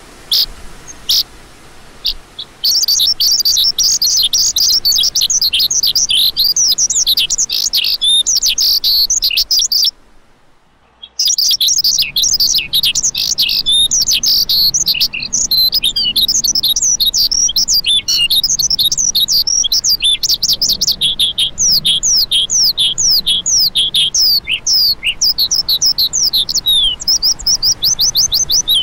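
A lark singing a fast, dense stream of high, short, downward-slurred chirping notes, several each second. It begins with a few scattered chirps and breaks off into silence for about a second and a half, some ten seconds in.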